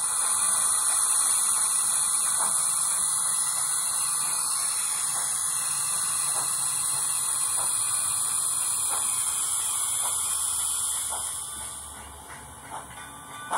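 Steam hiss from the sound decoder of an Nn3 model steam locomotive, played through the small speaker in its tender. It is a steady high hiss with a few faint, slow chuffs underneath, and it fades out about two seconds before the end.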